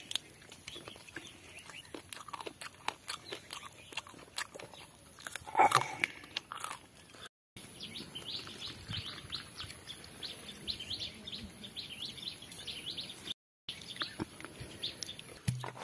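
Crunching and chewing on a roasted chicken leg, with many sharp clicks and one loud bite just before the halfway point. After a cut, small birds chirp rapidly in quick high notes.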